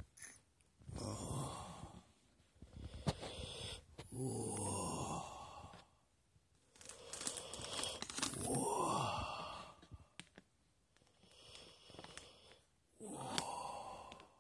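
A person making drawn-out, breathy moaning sounds in repeated bouts of a second or two, the pitch sliding up and down within each. A few sharp clicks fall between them.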